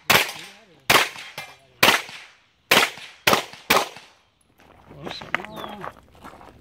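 Six handgun shots fired in quick, uneven succession over about four seconds, each a sharp crack with a short tail; then the shooting stops.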